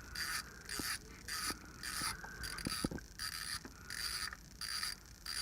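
Ratchet wrench clicking in steady, even strokes, about three every two seconds, backing out an 8 mm bolt, with a few light metal taps in between.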